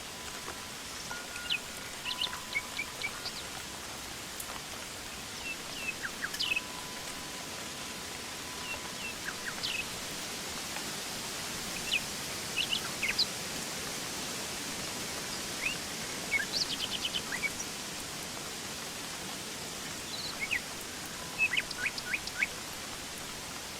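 Woodland ambience: many short bird chirps and calls, some in quick runs of several notes, over a steady high hiss. A faint held tone comes and goes underneath.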